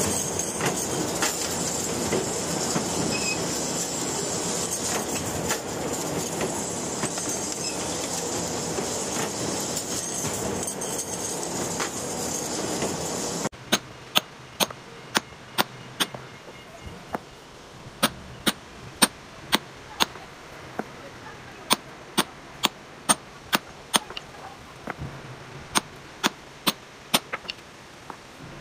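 Loud, steady metal machinery noise, with the rumble and grind of a rebar bending machine at work. It stops suddenly at about 13.5 s and gives way to a series of sharp, uneven hammer strikes on stone blocks, sometimes several a second.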